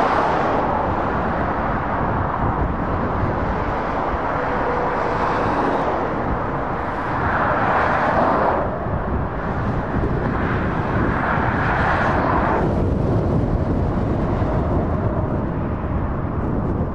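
Steady motorway traffic noise from cars and lorries, tyres and engines running together, swelling twice around the middle as vehicles pass close by.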